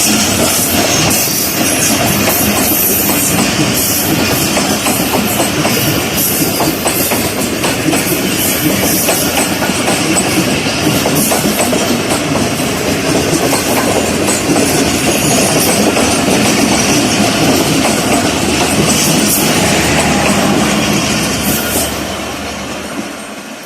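Passenger train's coaches rolling past, steel wheels clattering steadily over the rail joints; the sound fades over the last couple of seconds as the train draws away.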